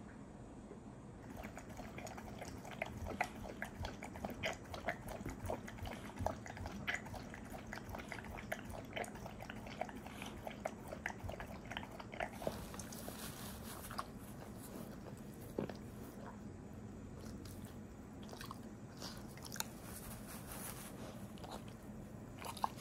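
Old golden retriever chewing and licking: a run of small, quick mouth clicks from about a second in. After about twelve seconds the clicks thin out to scattered licks.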